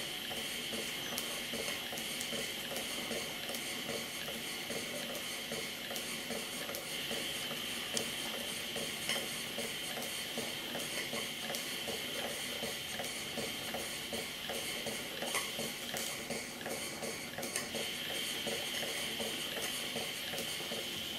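Model steam beam engine running smoothly on steam: a steady hiss of steam with a fine, fast ticking of its moving parts.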